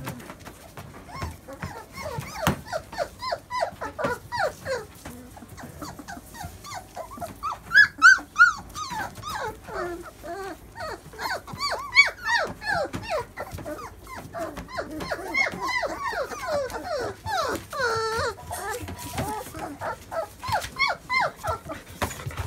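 A litter of one-month-old doodle puppies whining and yipping almost without pause: many short, high calls that bend in pitch. There are a few louder yelps about a third of the way in and one long drawn-out whine later on.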